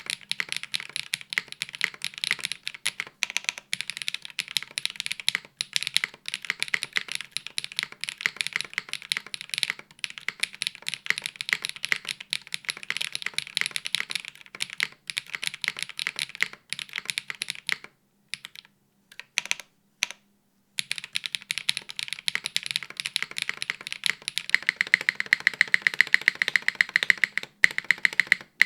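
Typing on a custom mechanical keyboard with HMX Aperol linear switches on a hotswap PCB with an aluminium plate, top mount, no foam, and GMK Norse keycaps: a steady stream of clacky keystrokes. There is a short pause about two-thirds of the way through, then a fast, even run of keystrokes near the end.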